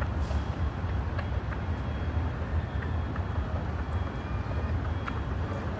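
Steady low rumble of city background noise, traffic-like, with a few faint thin high tones over it.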